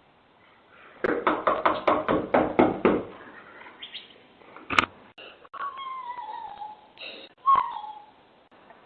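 Rapid pounding on a front door, about ten blows in two seconds. Then a sharp click and a couple of short high cries falling in pitch, like a meow.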